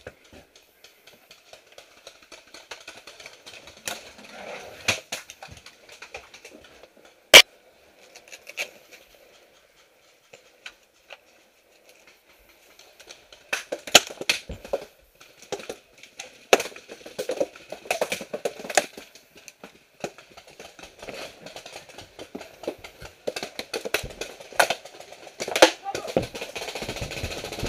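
Paintball markers firing in scattered sharp pops, one loud crack about seven seconds in and denser pops in the second half, over rustling movement and indistinct voices.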